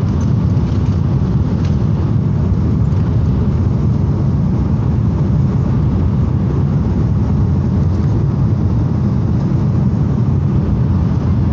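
Steady, loud low rumble of an Airbus A330 heard from inside the economy cabin: engine and airflow noise.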